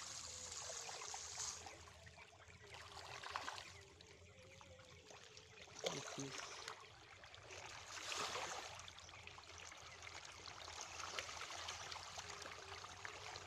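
A crowd of pangasius catfish splashing and churning at the water surface as they take floating pellet feed. The splashing comes in several louder surges.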